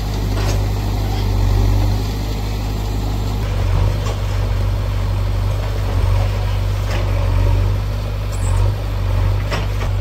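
JCB 3DX backhoe loader's diesel engine running steadily under load as it works, with a few sharp knocks over the engine, about half a second in, around seven seconds and near the end.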